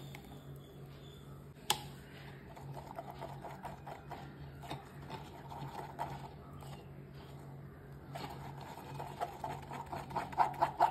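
Plastic spoon scraping and pressing a thick wet paste through a metal mesh tea strainer: rapid small scrapes and clicks, loudest near the end. A single sharp click about one and a half seconds in, as the bowl meets the strainer.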